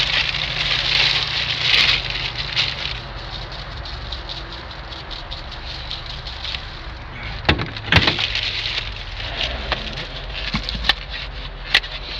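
Rustling with a few sharp knocks and clicks, as of plastic bags and food containers being handled, over a low steady rumble. The rustle is strongest in the first two seconds; the knocks come singly later on.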